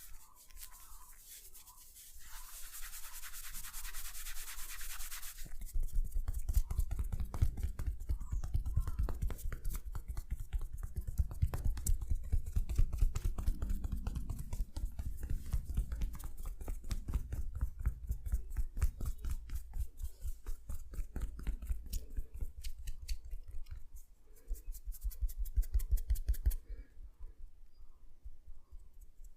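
Close-miked massage sounds: a hiss for about three seconds near the start, then a long run of fast, scratchy rubbing strokes on skin that stops a few seconds before the end.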